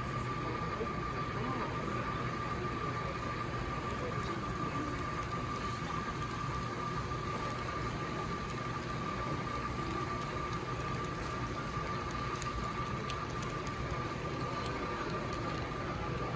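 HO-scale model train, led by diesel locomotives and hauling double-stack container cars, running steadily past on layout track against a constant hall din. A steady high-pitched tone runs under it.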